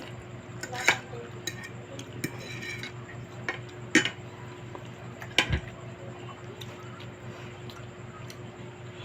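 Eating utensils clinking against dishware while eating noodles and chicken: sharp clinks about a second in, at four seconds and twice around five and a half seconds, with lighter taps between, over a steady low hum.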